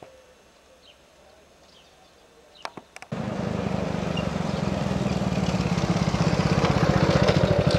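Small step-through motorcycle engine running as the bike rides up, starting suddenly about three seconds in with a fast, even putter and getting louder as it approaches.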